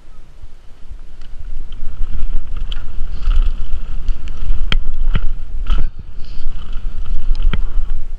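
Mountain bike rolling fast down a dirt forest trail: wind rushing over the camera microphone, building over the first couple of seconds as speed picks up, with sharp knocks and rattles from the bike over bumps.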